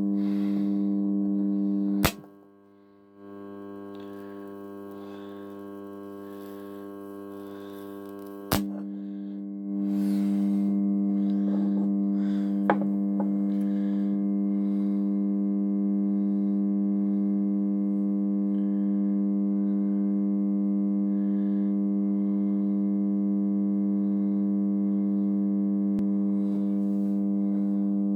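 Microwave-oven transformer humming loudly under load while heating metal: a steady electrical buzz with many overtones. A sharp click about two seconds in cuts it to a much quieter hum. Another click some six seconds later is followed by the full-strength buzz returning a second after.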